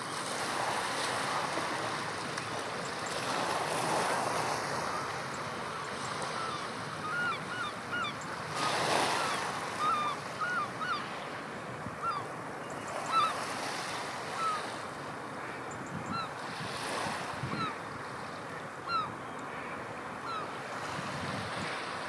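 Surf washing on a rocky shore in strong wind, rising and falling in slow swells. Over it, a scatter of short, upward-swooping bird calls repeats through the middle stretch.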